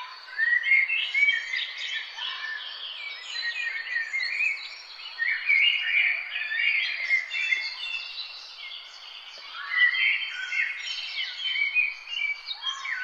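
Spring morning chorus of many songbirds singing at once, with overlapping chirps, whistles and trills over a faint steady background hiss.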